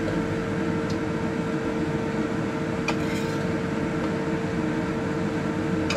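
A metal spatula scraping and tapping against a wok a few times, over a steady mechanical hum with a constant tone.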